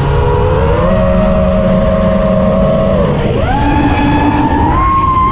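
FPV quadcopter's brushless motors and propellers whining, heard from a GoPro mounted on the quad, with wind noise underneath. The pitch follows the throttle: it rises about a second in, dips and then jumps higher just past the middle, and climbs again near the end.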